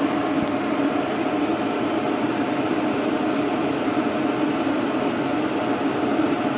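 Steady mechanical hum of a running fan or pump, an even drone with a low tone and a higher one held throughout.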